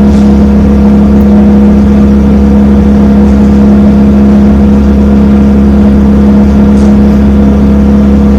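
A large work truck's engine running steadily, a loud unchanging drone.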